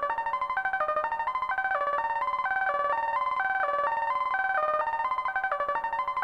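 Synthesizers.com analog modular synthesizer playing a looping Q119 sequencer melody with a ratchet effect: each step's note is retriggered several times in quick succession by the Q106 oscillator's pulse output, so the bright pitched notes stutter in rapid even repeats. The repeats run together more smoothly in the middle, then come out more distinctly again near the end.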